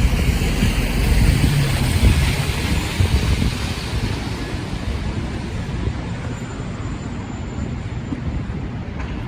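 City street traffic noise: a low rumble with a hiss of passing vehicles that is loudest in the first few seconds and slowly fades away.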